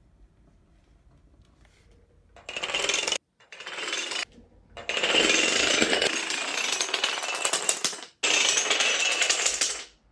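Wooden domino planks toppling one after another in a long chain on a hard floor, making a rapid, dense clatter of wood on wood. It starts about two and a half seconds in and breaks off abruptly a few times.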